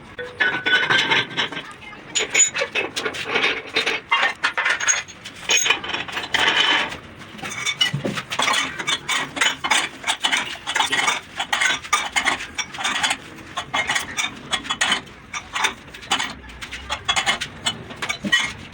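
Hand tools working on a truck tyre: a rapid, irregular run of metallic clinks and scraping strokes that goes on without a break.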